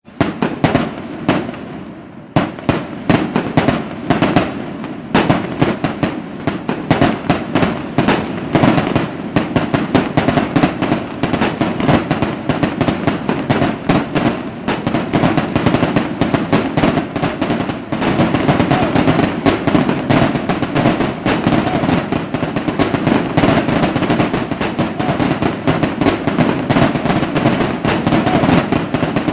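Fireworks going off in a rapid, continuous barrage of bangs and crackling. The bangs come a few at a time at first and pack closely together from about eight seconds in.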